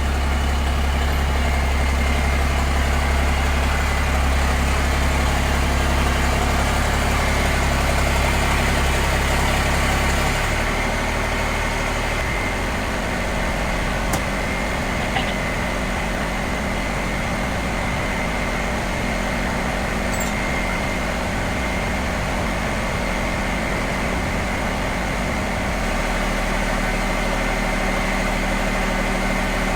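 Pickup truck engine running at idle, its low hum shifting about ten seconds in and again near the end.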